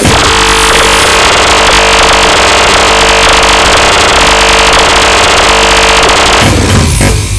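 Dark MIDI (black MIDI) rendering of the Oppo ringtone: a huge mass of synthesized notes sounding at once, merging into a loud, distorted wall of noise over a few held chord tones. About a second before the end the wall breaks up and thins.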